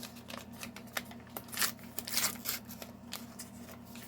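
Irregular rustling and clicking of toy packaging and small plastic figures being handled and taken out of a pack, with a few louder clicks near the middle.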